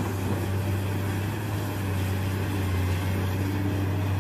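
Caterpillar 390D L hydraulic excavator's diesel engine running steadily while working, a low, even hum with no knocks or impacts.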